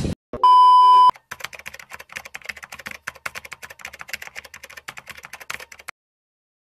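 A short, loud, steady electronic beep, then a typing sound effect: rapid, irregular keystroke clicks that run for about four and a half seconds and cut off sharply.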